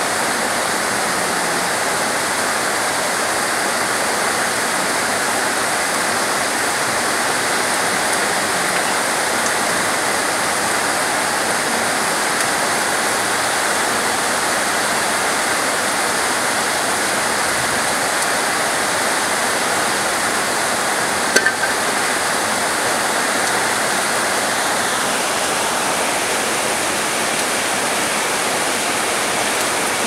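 Heavy rain falling steadily on palm fronds and foliage, an even hiss of downpour. One brief sharp click stands out about two-thirds of the way through.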